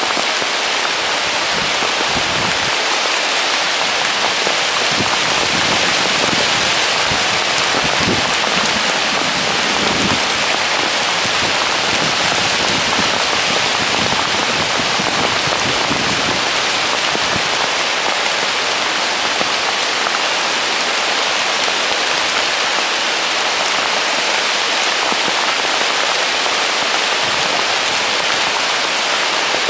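Heavy rain pouring steadily onto the leaves of a weeping willow: an even, unbroken hiss.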